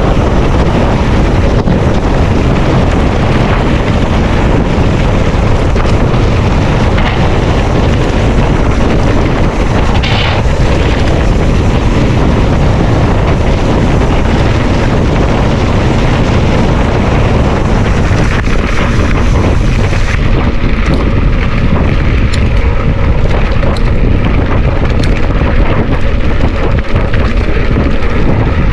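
Heavy wind buffeting the microphone of a moving rider's camera: a loud, steady rumbling rush that never lets up.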